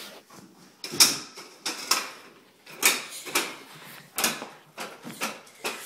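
Footsteps scuffing across a tile floor, about one a second with some closer together, each a short sharp scrape.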